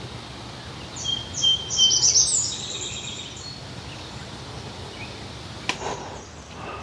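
Wild songbird chirping: a quick run of high repeated notes starting about a second in and lasting a couple of seconds, over steady outdoor background noise. A short sharp click comes near the end.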